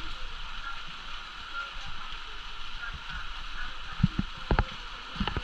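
Steady hiss of rainfall, with a few sharp knocks about four seconds in and again near the end.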